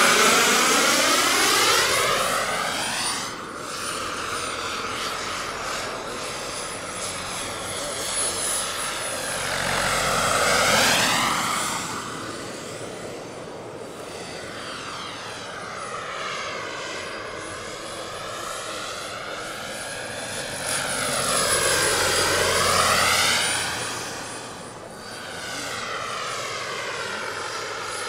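Turbine engine and rotor of a large SA-315B Lama scale RC model helicopter in flight, with a steady high whine over the rotor noise. It swells and fades as the helicopter passes by, loudest about ten seconds in and again a little past twenty seconds.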